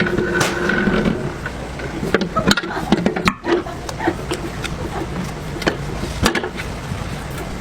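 Bakery production-line machinery running: a steady hum with frequent clicks and clattering knocks.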